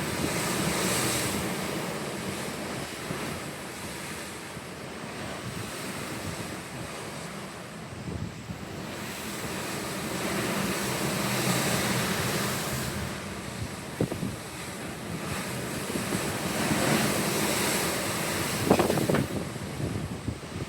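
Pacific Ocean waves washing, swelling and fading every few seconds, with wind buffeting the microphone. A couple of brief knocks come in the second half.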